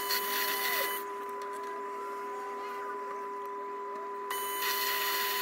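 Proxxon PD250/E mini lathe running with a steady whine while its tool turns a steel rebar shaft. A hissing cutting sound lasts about the first second, stops, and comes back about four seconds in.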